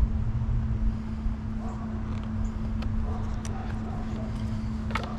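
A small cardboard lure box being opened and handled: scattered light clicks and rustles of cardboard and plastic packaging, over a steady low hum and rumble.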